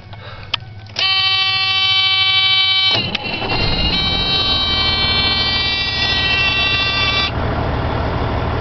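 A metal train air horn sounds one steady note for about two seconds and cuts off. An air compressor then starts and runs with a loud, steady rumble, filling the horn's air tank.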